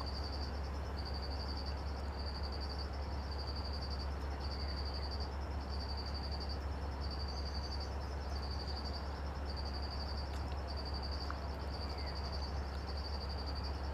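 An insect chirping in regular high-pitched pulses, a little under one a second, over a steady low rumble.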